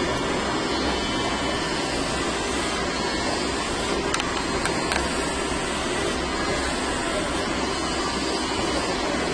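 Electric hair clippers buzzing steadily as they shave the side of a head down to the scalp.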